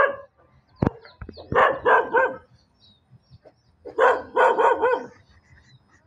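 Animal calls in two quick runs: three calls about a second and a half in, then four more about four seconds in. A couple of sharp knocks come just before the first run.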